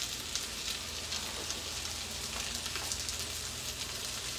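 Sardines frying in oil in a skillet: a steady sizzle with scattered small pops and crackles.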